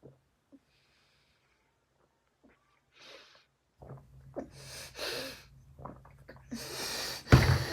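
A person gulping sparkling water from a bottle. After about three seconds of quiet come hard, snorting breaths through the nose between swallows, and a loud thump near the end.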